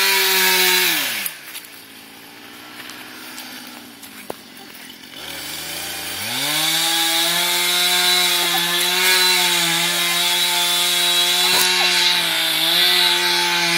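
Husqvarna 455 Rancher two-stroke chainsaw running at full throttle, cutting into a dead oak. It drops to idle about a second in, revs back up around six seconds in, and holds at cutting speed with a brief dip near the end.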